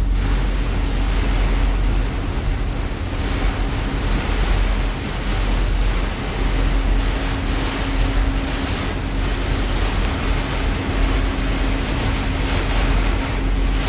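Heavy rain pouring down steadily, with wind buffeting the microphone, and a faint steady hum under it.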